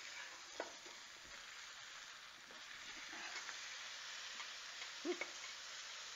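Grouper filet sizzling in butter in a hot cast iron pan, with a few light scrapes and taps of a metal fork against the pan as the fish is flipped.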